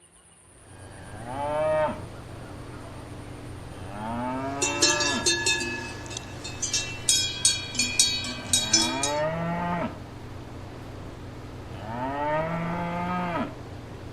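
Cattle mooing: four long, low calls that rise in pitch, spaced a few seconds apart. Through the middle stretch a bell clanks repeatedly, loudest between the second and third calls.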